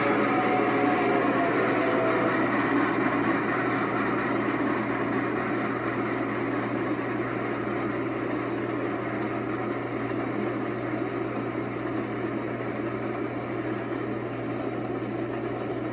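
Passenger train rolling past behind steam locomotive Nickel Plate 765: a steady rumble of the train going by that slowly fades.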